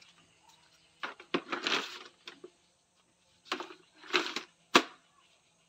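Plastic chair being stacked onto other plastic chairs: two scraping, rattling stretches about a second each, then a sharp knock near the end.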